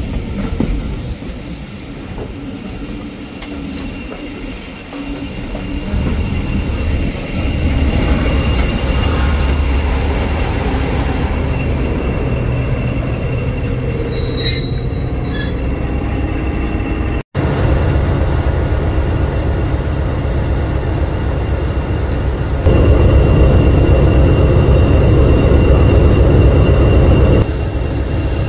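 Heritage diesel locomotive's engine running close by, a steady low rumble and hum. It grows louder a few seconds in, steps up again about four-fifths through, and drops back just before the end.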